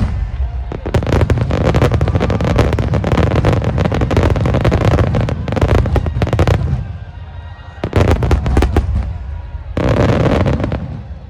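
Aerial firework shells bursting in dense rapid volleys of deep booms and crackle. There is a short lull about seven seconds in, then two more brief volleys, and the sound fades near the end.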